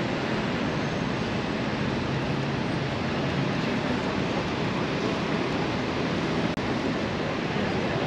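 Steady city traffic noise, an even rushing rumble with no distinct events.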